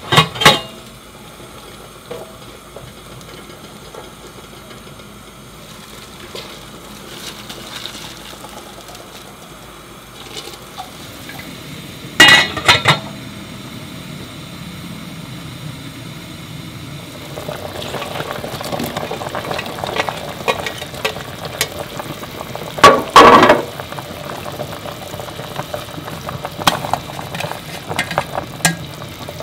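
Stainless steel stockpot and its lid clanking in a few sharp metal knocks as the pot is opened and food is added. About two-thirds of the way in, the broth in the pot starts bubbling at a boil.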